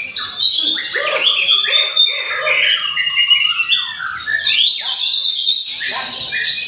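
White-rumped shama song: a loud, unbroken stream of quick varied whistles, slurred glides and harsh chatters.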